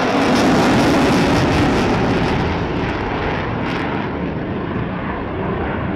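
Aircraft flying past, a loud rushing engine rumble that is loudest about a second in and then eases as its high end fades away.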